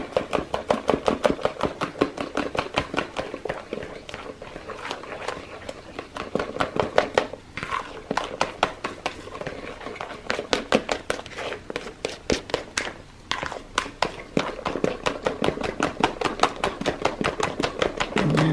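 A spatula stirring and beating a thick, icing-like paste of white henna, soap chips and hydrogen peroxide in a bowl: quick rhythmic strokes, several a second.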